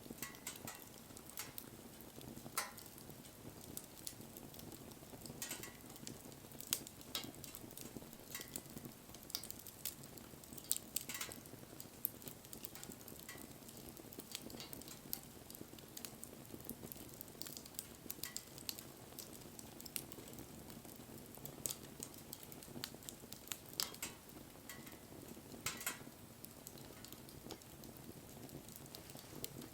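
Wood campfire crackling: irregular sharp pops and snaps, several a second at times, over a soft steady hiss of burning.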